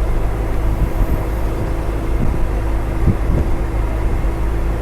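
Lorry driving along a highway: a steady low engine drone mixed with road noise, with a couple of light thumps about two and three seconds in.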